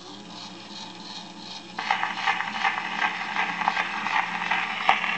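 Columbia Type AB Graphophone starting to play a black wax Edison cylinder: its mechanism runs with faint ticking, then about two seconds in the level jumps to a loud, steady hiss and crackle of the stylus in the cylinder's groove, with a sharp click near the end.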